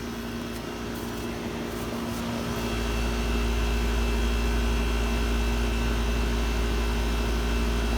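R-22 residential air-conditioning condensing unit running: a steady compressor hum under the whoosh of the condenser fan, growing louder over the first few seconds and then holding steady, with a deep low rumble that comes in about three seconds in.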